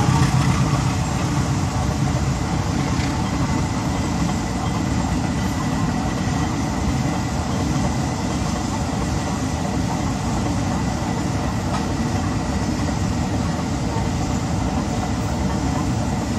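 Diesel-hauled freight train rolling over a level crossing: a steady rumble and clatter of wagon wheels on the rails. It is loudest in the first second as the locomotive passes, then settles into an even run.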